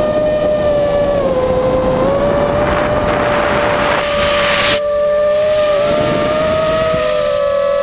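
Whine of an FPV racing quadcopter's brushless motors (EMAX RS2205, three-blade GemFan props), heard from the onboard camera: a steady high tone that dips slightly about a second in. A rush of wind and prop noise runs for about two seconds in the middle, then the tone splits into two pitches as the motors run at different speeds.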